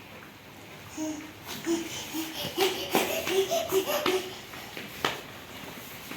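A toddler laughing and babbling in a quick run of short, high syllables for about three seconds, followed by a single sharp click.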